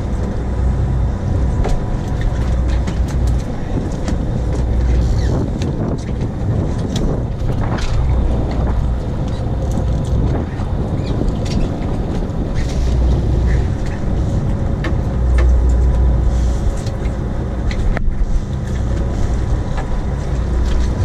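Sport-fishing boat's engine running with a steady low rumble, with scattered sharp clicks and knocks on deck.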